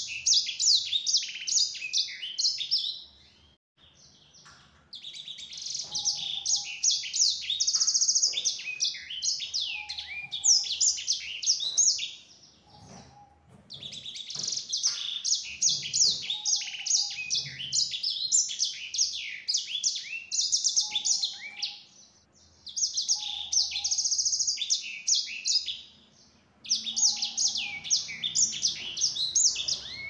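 Sanger, a canary-type finch, singing long, fast, high warbling phrases packed with rapid trills, in five bursts of a few seconds each with short pauses between them.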